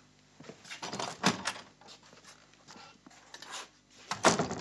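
Knocking and clattering on wood: a cluster of knocks about a second in and a louder clatter near the end.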